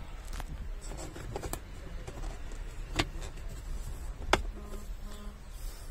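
Handling noise inside a car cabin, with a few light clicks and two sharp clicks about three and four and a half seconds in, as the interior fittings are touched and moved.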